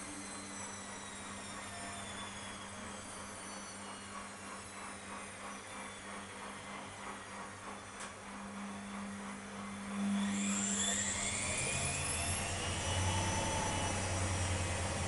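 Beko 2612C washing machine drum turning slowly with the load tumbling in a soft rhythmic slosh and a faint falling motor whine. About two-thirds of the way in the motor suddenly gets louder and its whine rises for a couple of seconds, then holds steady as the drum speeds up into the intermediate spin.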